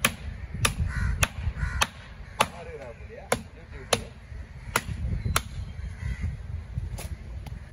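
A heavy fish-cutting knife chopping through a giant trevally head on a wooden stump block: about ten sharp chops, roughly one every half second or so, with a short gap near the end.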